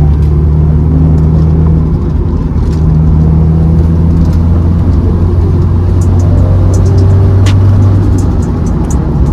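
Tuned, turbocharged Subaru WRX's flat-four engine and exhaust droning steadily under way, the note shifting slightly about eight seconds in.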